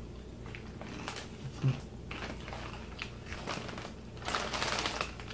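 Corn chips being crunched and chewed, in irregular crisp crunches, with a single dull thump just under two seconds in. About four seconds in, the foil chip bag rustles for about a second.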